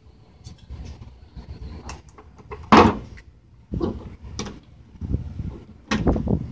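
Setting a rivet through a sheet-metal patch on a door: metal and tool clicks and knocks, with one sharp, loud metallic snap almost three seconds in and more knocking near the end.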